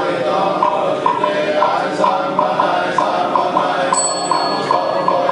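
Buddhist monks chanting in unison, kept in time by a wooden fish knocked steadily about three times a second. About four seconds in, a small bell rings with a thin high tone.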